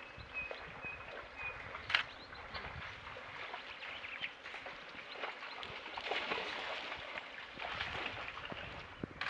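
Light sloshing and splashing of blue wildebeest wading and drinking in a shallow muddy waterhole, with a few sharp clicks and a faint repeated high chirp in the first second and a half.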